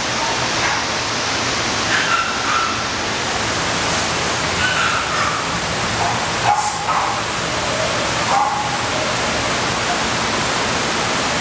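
Dogs barking and yelping in shelter kennels: short, scattered barks over a steady rushing background noise.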